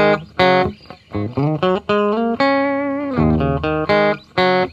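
Guitar-led intro music: a plucked, electric-sounding guitar melody whose notes often slide up or down in pitch.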